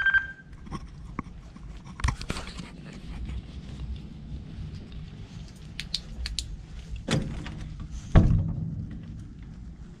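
Keys clipped at the hip jangling and clicking with each step, then two heavy thumps about seven and eight seconds in as a door is handled and pushed open.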